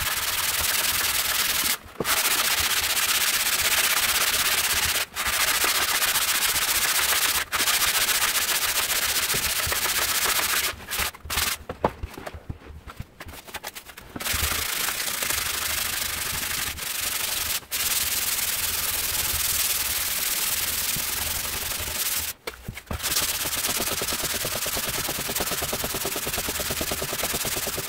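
Sandpaper rubbed by hand along a charred oak knife handle: a steady scratchy hiss. It stops for a few seconds about halfway through, with a few light knocks in the gap, then starts again.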